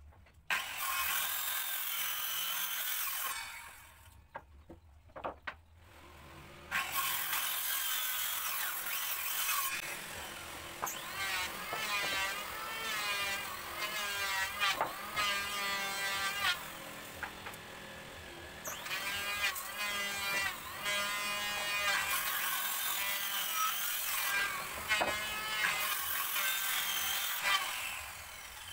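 Hand-held electric power saw cutting teak beams: two cuts in the first ten seconds with a short pause between, then a motor whine that repeatedly dips and rises in pitch as the blade loads up in the wood.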